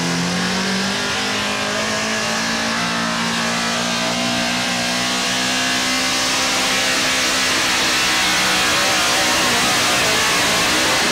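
Super Stock 4x4 pulling truck's engine at full throttle dragging a weight-transfer sled. Its pitch climbs in the first second and then holds steady, with a hiss of noise that grows louder in the later seconds.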